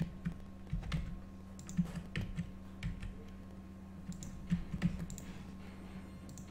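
Computer keyboard keystrokes and mouse clicks, irregular and scattered, over a faint steady low hum.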